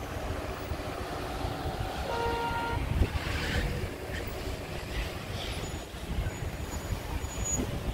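Road traffic: cars driving past on the road alongside, a continuous tyre and engine rumble, with a short steady tone about two seconds in.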